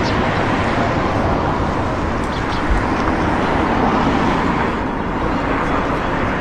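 Steady, dense mechanical noise of a running motor or vehicle, without a clear pitch.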